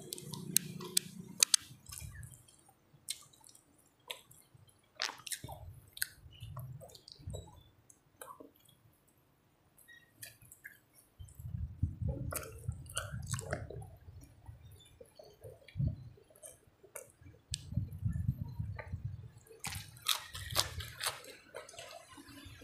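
A person eating close to the microphone: wet chewing, lip smacks and finger-sucking while eating rice and fish curry by hand. A quick run of sharp smacks comes in the first second and a half, and heavier, deeper chewing comes about halfway through and again near the end.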